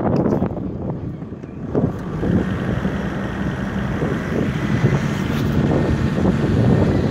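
Wind rushing and buffeting over the microphone of a camera held out of a moving car's window, over the low rumble of the vehicle driving a dirt track.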